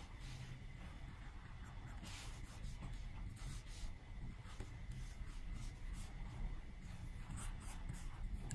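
Apple Pencil tip stroking and tapping on an iPad's glass screen: faint, scratchy strokes, with a longer stroke about two seconds in and several short ones near the end.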